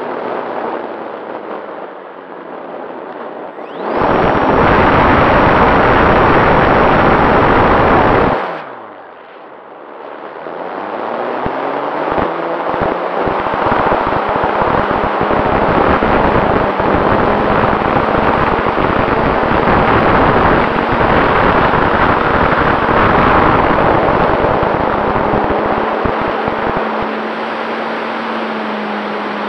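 Onboard sound of an RC model airplane's motor and propeller, picked up by the nose-mounted camera. A loud rushing burst starts about four seconds in and stops abruptly four seconds later. The motor then spools up with a rising pitch and runs steadily at high power through the takeoff and climb, with wind buffeting the camera microphone.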